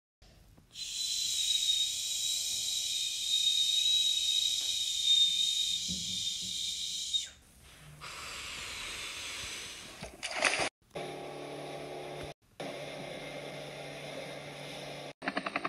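A long steady hiss with a high whistling tone lasts about six seconds. It is followed by a fainter rushing noise, a short sharp burst and a steady hum with several tones. Near the end a helicopter's rotor chop starts.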